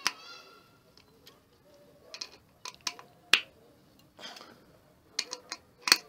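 A wood screw being driven by hand into a pine board with a screwdriver bit held in a multitool bit adapter: irregular sharp clicks and ticks as the bit turns in the screw head and the screw bites into the wood, the loudest about a third of the way in.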